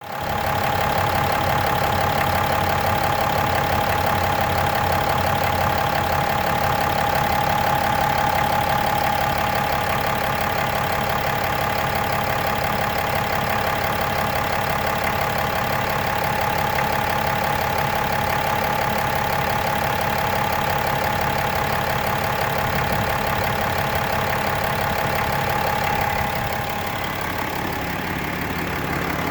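6.7-litre Cummins inline-six turbodiesel idling steadily, with the random rattling knock or ping the owner hears at idle in this brand-new engine. A steady whine in the sound drops out near the end, and the level falls slightly.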